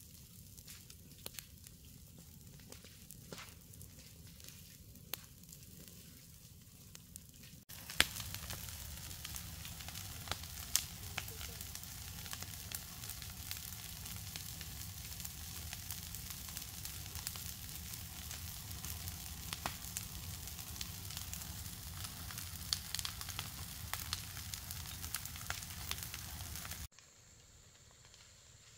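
Steady sizzling, as of food frying, dotted with sharp crackles and pops. It jumps louder abruptly about eight seconds in and drops back abruptly near the end.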